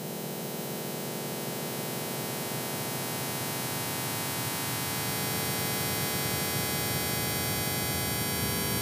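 Industrial noise music: a dense, steady drone of humming tones and static hiss, slowly growing louder.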